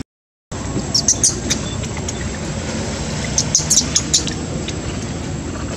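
A brief dropout to silence, then steady outdoor background noise. Over it come two clusters of short, high-pitched animal chirps, about a second in and again around three and a half to four seconds in.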